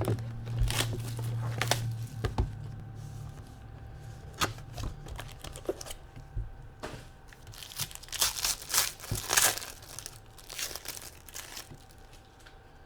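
Plastic wrapping and foil packs of trading cards being torn open and crinkled by hand, an irregular crackling and rustling that is busiest about eight to ten seconds in.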